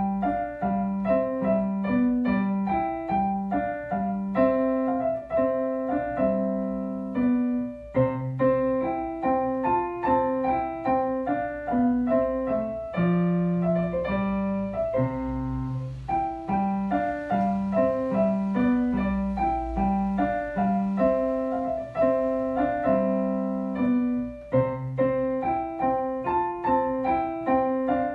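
Digital piano played solo: a Classical-era keyboard piece with a melody over a left-hand accompaniment at a steady pace, with short breaks between phrases.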